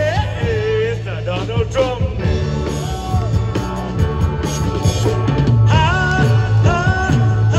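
Music with a singer holding long notes over a steady bass line.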